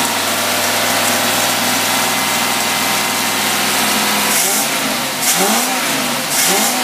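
Engine running a Rochester marine carburetor on a test rig, held at a steady raised speed for a simulated road test at about 65. About four seconds in, its speed starts dipping and rising again several times, with short bursts of hiss.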